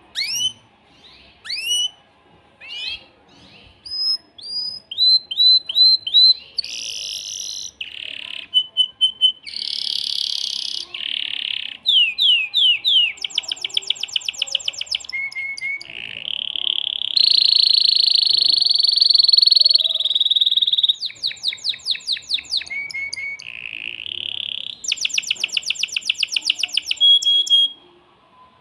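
Male domestic canary singing one long, loud, continuous song made of rapidly repeated phrases: rising whistled sweeps at the start, fast trills, and a long held buzzing note in the middle, stopping shortly before the end. This is the agitated male courtship song used to bring hens into breeding condition.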